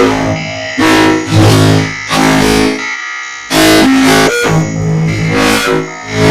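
Music with guitar-like and synthesizer tones, played in loud swells of held notes that change pitch from phrase to phrase, with a brief break about three seconds in.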